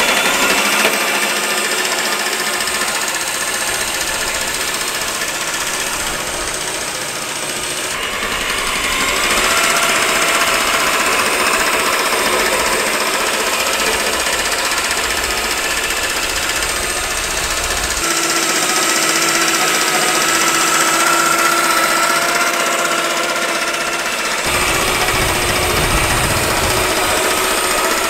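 SunJoe battery-powered reel mower running, its electric motor spinning the cutting reel with a steady whine as it cuts overly tall Bermuda grass. The pitch of the whine shifts a few times.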